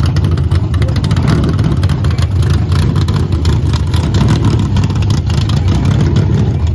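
Dirt modified race car engine running loud and steady through an open exhaust, a deep rumble with a rapid crackle, warming up for the heat race.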